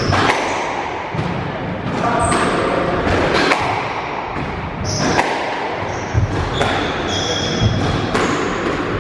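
Squash rally: repeated sharp hits of the ball off rackets and the court walls, with short high squeaks from shoes on the wooden floor, echoing in the enclosed court.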